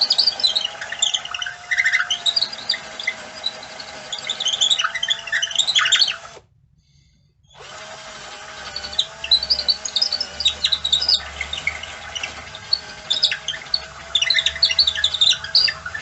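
Power drill running with a wavering whine as it enlarges a bored hole in a wooden chair leg, with high squeaks and chirps from the bit cutting. The drill stops for about a second partway through, then runs again.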